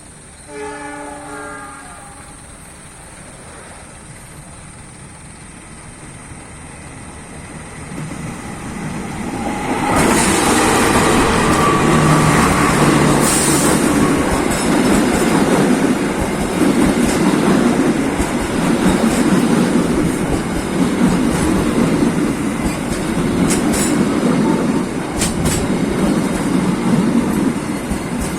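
An Indonesian diesel-hauled passenger train: the locomotive's horn sounds once, briefly, near the start, then the train grows louder as it approaches and passes close by with a steady rumble and a rhythmic clickety-clack of wheels over rail joints.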